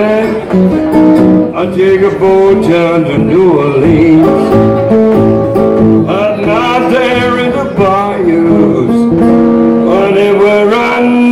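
Delta blues played live on a metal-bodied resonator guitar, with a man's voice singing over it.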